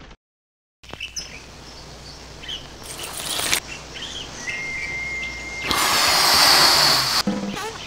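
Outdoor ambience with scattered bird chirps and a held whistle-like tone over a low hum, after a brief silence. A short hiss comes about three seconds in, and a louder hiss lasting about a second and a half comes near the end.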